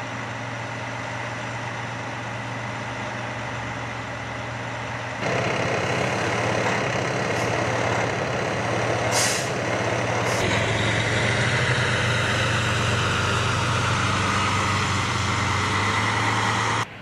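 Fire engine's diesel engine idling, a steady hum that steps louder about five seconds in. A short hiss of air cuts in about nine seconds in, with a shorter one a second later.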